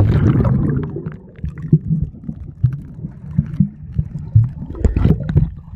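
Muffled underwater sound of a swimming pool, heard by a submerged camera: a low churning of water with bubbling and scattered knocks.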